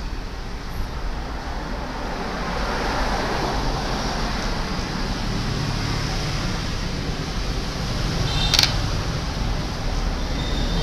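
Steady background noise with a low hum, and one brief click about eight and a half seconds in.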